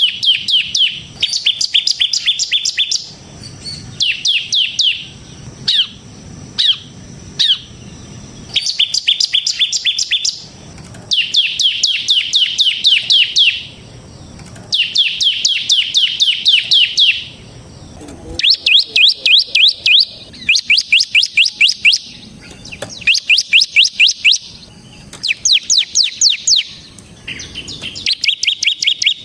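Bar-winged prinia (ciblek) singing in its excited, rapid 'ngebren' style: fast trills of sharp, high repeated notes in bursts of one to three seconds, with short pauses between.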